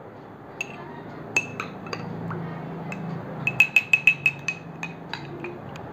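A spoon stirring liquid in a small drinking glass, clinking against the sides with a short ring. There are a few scattered clinks at first, then a quick run of about six or seven a second some three and a half seconds in, easing off near the end.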